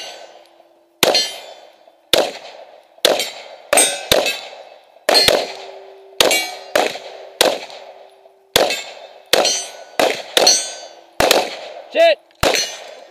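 9mm pistols (a Glock 17 and a Smith & Wesson M&P9) firing about two dozen shots in quick, uneven strings, often two or three close together, each shot ringing out and echoing. A steady low ring runs underneath.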